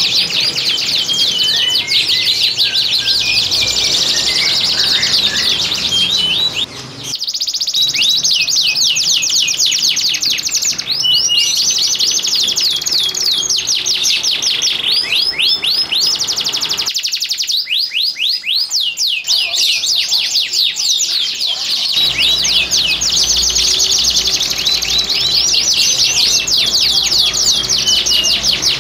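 Domestic canaries singing without pause in long runs of fast rolling trills and rapidly repeated sweeping notes, the rolling 'ngerek' song of males in breeding condition. The sound cuts abruptly between recordings a few times.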